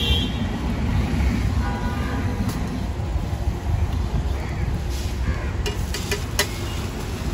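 Street-stall ambience dominated by a steady low traffic rumble, with a few sharp clicks about five to six seconds in from a metal spatula on the iron griddle where an egg paratha is frying.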